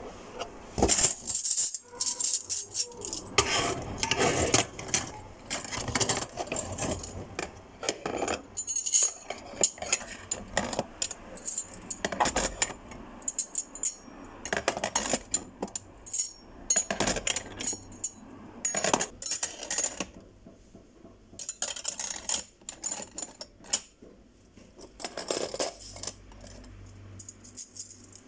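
Irregular clinking and clattering of small hard objects, sharp knocks coming in quick clusters, thinning out about two-thirds of the way through.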